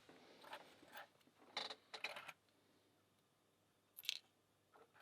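Faint, scattered small clicks and scrapes of metal lock parts being handled as the pins are taken out of an American 1100 padlock: a few single ticks, a quick cluster about two seconds in, and another click near four seconds.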